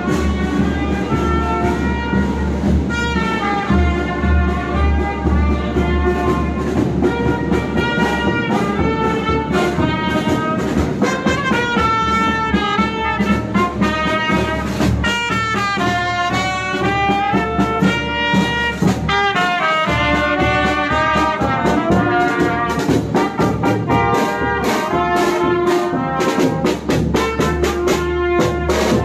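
Brass-led music with a melody moving over a steady beat.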